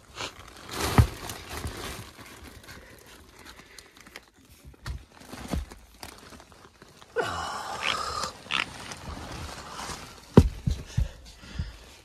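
Footsteps and knocks on plywood attic decking, with a cluster of thuds near the end. A short rasping, grunt-like noise comes about seven seconds in.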